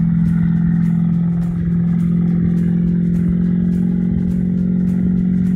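A motor running steadily at constant speed, a loud, even low hum that wavers briefly about a second and a half in.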